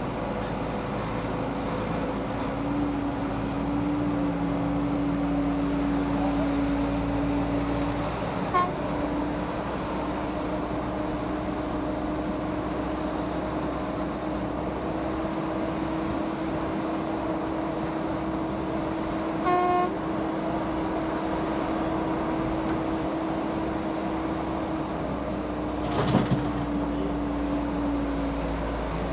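Caterpillar E120B hydraulic excavator's diesel engine running steadily as it digs and swings, its pitch rising slightly about halfway through. A short horn toot sounds about two-thirds through, and a brief knock near the end.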